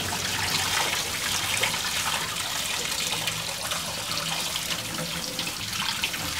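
Tap water running steadily into a stainless-steel sink and splashing over a bowl of ingredients being rinsed by hand under the stream.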